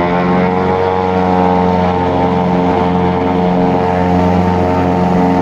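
Propeller aircraft engine running steadily, heard close beneath the wing. It is a loud, even drone whose pitch rises slightly in the first second, then holds.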